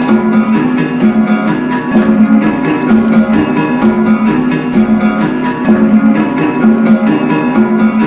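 Music led by a plucked string instrument repeating a short riff over a quick, steady beat of sharp strikes.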